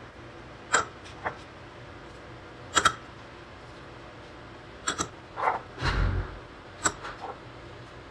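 A run of light clicks and taps, about eight spread unevenly, with a duller thump about six seconds in: spice containers and a spoon knocking against a bowl as ground spices are added.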